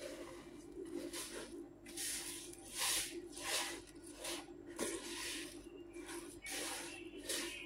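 Silicone spatula stirring roasted sesame seeds into sticky caramelized brown sugar syrup in a plastic bowl. Repeated scraping, squishing strokes come about two a second over a steady low hum.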